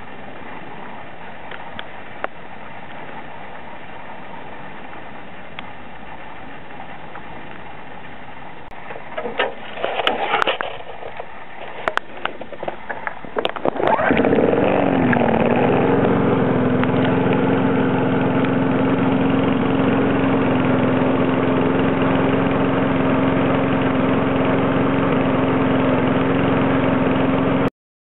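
Petrol rotary lawnmower engine being pull-started: a few short cord pulls and sputters between about nine and fourteen seconds in, then it catches, dips briefly in pitch and settles into a steady run. The running engine cuts off abruptly near the end.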